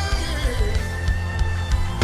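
Worship band music between sung lines: a strong bass and sustained chords under regular drum hits, with a short falling glide in pitch about half a second in.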